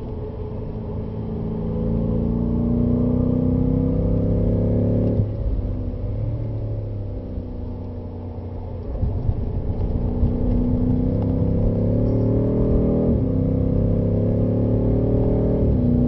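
BMW M5's twin-turbo V8 heard from inside the cabin at speed. The engine note climbs, cuts off about five seconds in and falls away as the car slows for a bend. It then climbs again under hard acceleration, with a quick upshift about two-thirds of the way through. A steady low road and tyre rumble runs underneath.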